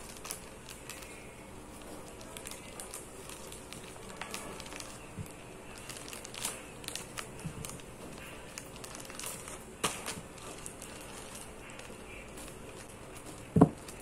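Plastic wrapping crinkling and rustling as a package is unwrapped by hand, with many small scattered clicks. A single loud knock comes near the end.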